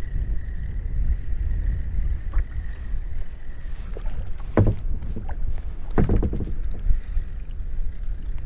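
Wind rumbling on the microphone of a kayak on open water, with a faint steady tone for the first few seconds. There are two sharp knocks, about a second and a half apart, near the middle.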